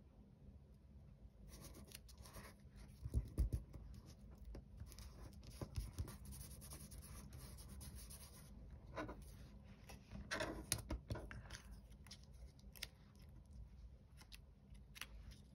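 Faint rustling and scratching of paper pieces and stickers being handled and smoothed down onto a card on a cutting mat, with scattered light clicks and a dull thump about three seconds in.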